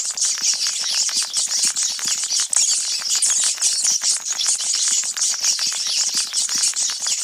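A pack of sewer rats squeaking and chittering together: a dense, high-pitched chatter mixed with many quick scratchy clicks.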